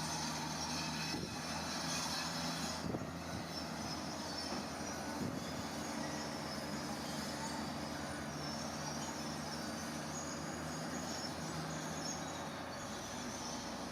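Heavy diesel construction machinery running steadily, with a high-pitched streaky squeal over the engine drone.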